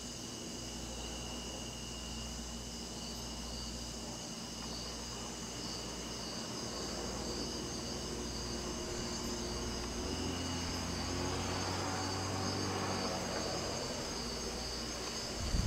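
Night insect chorus of crickets and other insects, trilling steadily at two high pitches. Past the middle a motor vehicle's engine swells up and fades away beneath it, and a short thump comes near the end.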